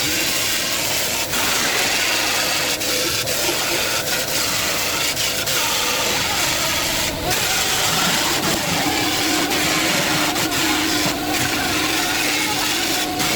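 A motor-driven machine running steadily and loudly, with a steady hum coming in about eight or nine seconds in and a few momentary dips.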